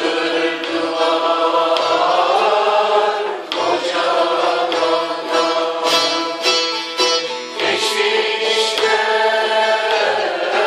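Mixed group choir singing a melody in unison, accompanied by a bağlama (long-necked saz) and a frame drum beating steadily about once a second.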